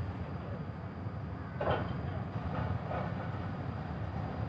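Steady low rumble of a large passenger ship's engines running at the berth as it gets ready to leave.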